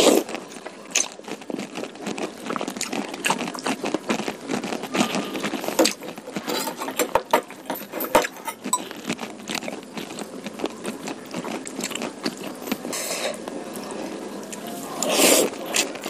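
Close-miked eating sounds: wet chewing and slurping of saucy curry noodles, with many small sticky mouth clicks and a louder slurp near the end.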